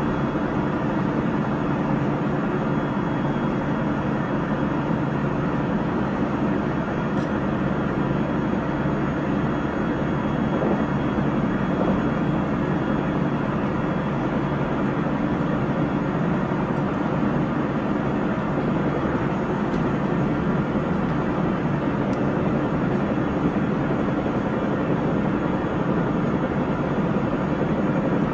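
Running noise of a JR Central 373 series electric train (set F2, which the uploader labels for its unusual noise) travelling at steady speed. There is a steady rumble of wheels on rail, with a few faint unchanging tones and no rise or fall in pitch.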